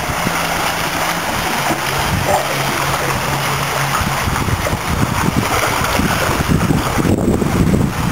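Swimmers splashing and stroking through the water of a swimming pool, over a steady rushing noise.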